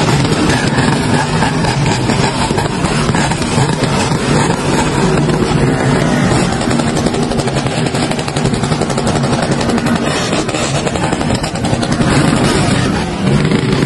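Several motorcycle engines running together, loud and continuous.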